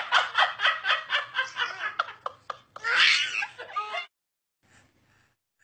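A person laughing hard in rapid repeated bursts, breaking off about four seconds in.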